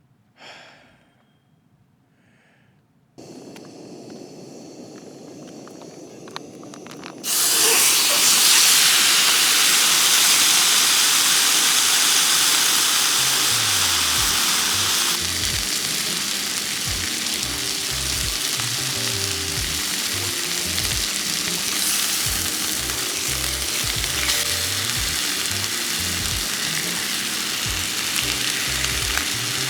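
Food frying in a pan: a soft hiss starts about three seconds in, then loud, steady sizzling from about seven seconds. Background music with a low bass line comes in about halfway through.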